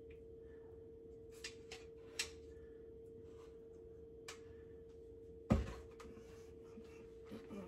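Quiet kitchen handling as raw chicken pieces are laid into a nonstick air fryer basket: a few light taps and clicks, then one dull thump about five and a half seconds in, over a faint steady hum.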